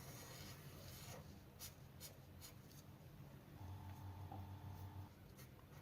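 Near silence: faint room tone with a few soft clicks and a brief faint hum about two thirds of the way through.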